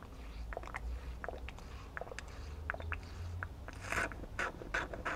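A small plastic bottle of Schwalbe Doc Blue tubeless sealant being squeezed into a mountain-bike tyre through a gap at the rim: light clicks and crackles of the squeezed bottle, then from about four seconds in a quick run of louder spluttering squirts, a few a second, as sealant and air are forced out.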